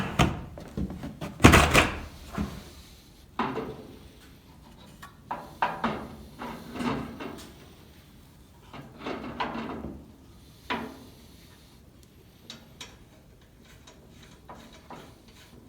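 Knocks, thuds and scraping from the electric motor being handled and fitted onto the motor mount of an old Delta contractor table saw. One loud knock comes about a second and a half in, with scattered clunks through the middle and only light ticks near the end.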